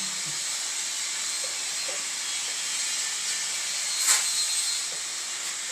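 Steady high-pitched hiss, with one sharp knock about four seconds in.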